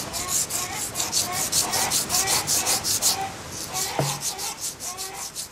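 A spinning top being ground back and forth against a sandstone block, rasping in quick even strokes of about four a second, with a single knock about four seconds in. This is the grinding stage that shapes the top.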